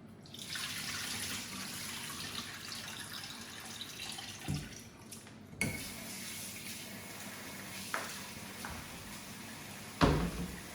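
Water running from a tap into a sink, with several short knocks and clinks, the loudest near the end.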